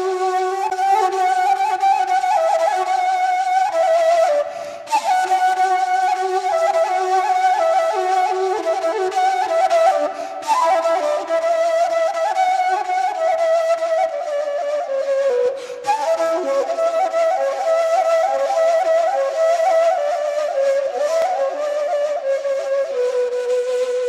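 Background music: a flute playing a slow melody, with short breaks about every five seconds.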